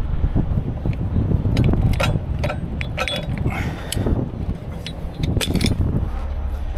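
Steel rigging hardware clinking and clanking as hooks, snatch blocks and wire rope winch lines are handled and hung from a rotator tow truck's boom. Irregular sharp metallic knocks run over a steady low rumble.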